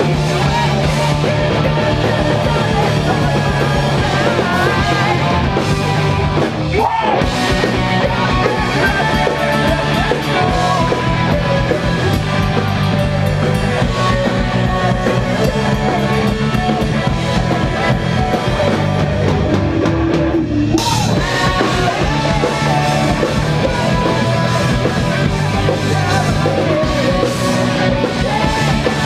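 A post-hardcore band playing loud and live: distorted electric guitars and a drum kit. The cymbals drop out briefly twice, about a quarter of the way in and again about two-thirds in.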